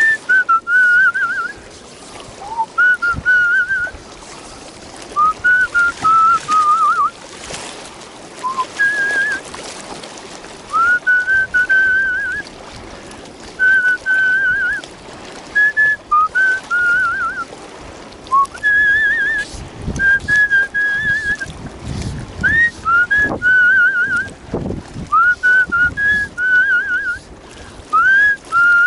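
A man whistling a tune: phrase after phrase of short, warbling notes with trills, with short gaps between phrases.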